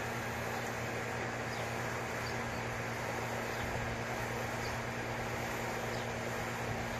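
Steady outdoor background noise: an even hiss with a low hum beneath it, and a few faint short high chirps scattered through it.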